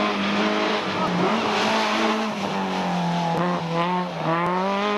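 Small hatchback rally car's engine held at high revs through a bend. Its pitch dips several times as the driver lifts off and shifts, then climbs again as it accelerates away.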